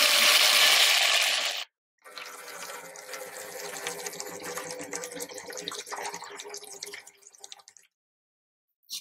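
Kitchen tap running onto lettuce leaves in a bowl, cutting off abruptly after about a second and a half. After a short gap, a gentler stream of tap water splashes over cherry tomatoes in a small bowl for about five seconds, then trails off.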